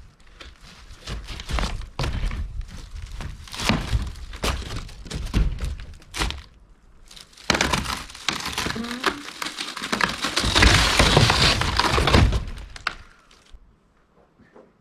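An RV wall being torn out: repeated knocks, bangs and crashes of thin sheet metal, aluminum trim and rotted framing being pried and pulled loose. The crashing builds to a long, loud stretch past the middle and stops about a second before the end.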